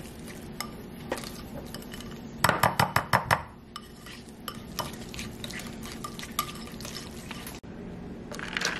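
Wire whisk clinking and scraping against a ceramic bowl while avocado spread is whisked. A quick run of about ten rapid clinks comes a couple of seconds in.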